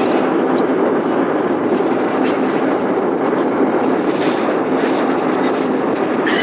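Steady engine and airflow noise of an aircraft cabin in flight at altitude, heard from inside at a window seat. A few faint, brief clicks come about four seconds in and near the end.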